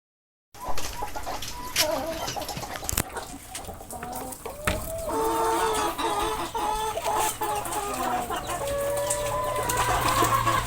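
Chickens clucking, many short calls overlapping, busier after the first few seconds, with a few sharp knocks early on.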